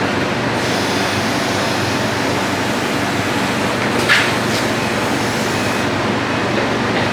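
A machine running steadily, with a brief high squeak about four seconds in.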